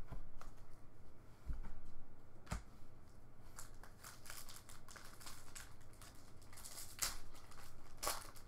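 Foil wrapper of a football trading-card pack crinkling and tearing as it is opened by hand. Two sharp taps come about one and a half and two and a half seconds in, then a longer stretch of crackling rustles, loudest near the end.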